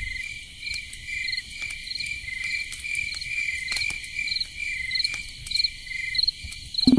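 Crickets chirping: short, even trills repeating a little under twice a second, with faint ticks among them.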